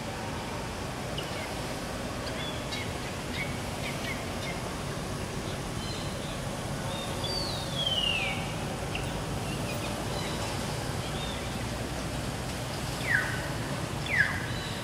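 Forest ambience: a steady hiss with scattered faint chirps, a louder call sliding down in pitch about eight seconds in, and two short, loud calls falling in pitch near the end.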